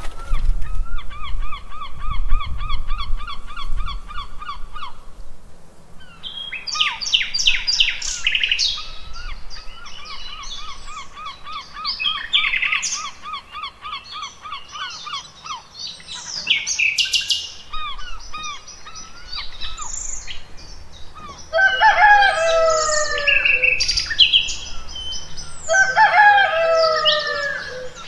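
Mixed birdsong: several songbirds chirping and trilling, beginning with a fast even trill for a few seconds. Near the end come two bursts of lower, repeated bird calls.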